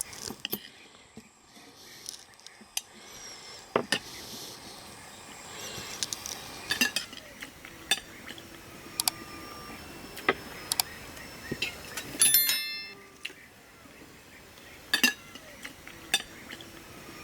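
Scattered clinks and knocks of kitchenware being handled, a few to a second or so apart. About twelve seconds in, a brief high-pitched squeal is the loudest sound.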